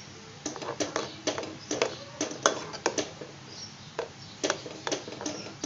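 Metal spoon stirring thick mango paste in a pan, clicking and scraping against the pan's bottom and sides in short sharp knocks, about two a second. The paste is being cooked down so that it thickens.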